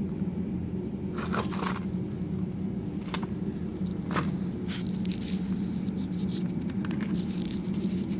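A steady low engine hum, with scattered light clicks and scratchy scraping sounds over it.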